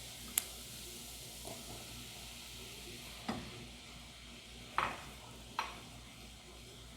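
Roux of butter, onion and flour sizzling gently in a pan as it is stirred, with four short scrapes of the utensil against the pan. The flour is being cooked in the butter so the cream won't taste of raw flour.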